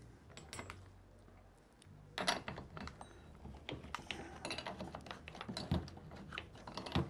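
Light, irregular clicking and tapping of hand tools and small metal parts against a chainsaw while its spark plug is being removed. The clicks are faint and sparse at first and turn busier about two seconds in.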